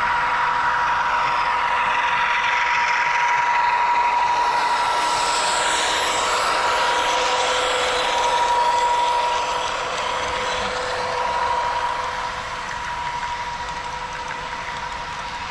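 HO scale model train running on the layout: wheels rolling on the rails and running-gear noise with a steady high whine, growing quieter over the last few seconds as it moves off.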